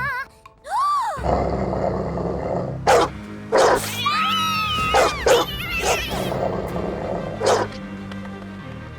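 Cartoon dogs growling, with several sharp barks between about three and seven and a half seconds in, over dramatic music.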